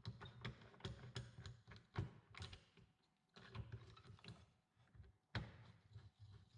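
Light, irregular knocks and clicks of a piece of old, weathered wood being handled and set in place against the mitre saw's fence, with one sharper knock about five and a half seconds in. The saw's motor is not running.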